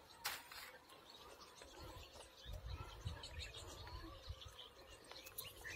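Faint chirping of small birds, many short high calls. A sharp click comes about a third of a second in, with patches of low rumble.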